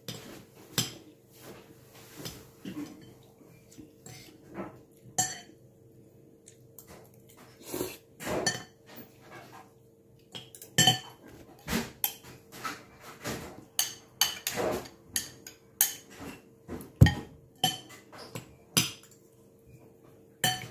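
Metal spoon and fork clinking and scraping against a ceramic bowl of noodles and rice, in irregular short clicks, with chewing and eating sounds in between.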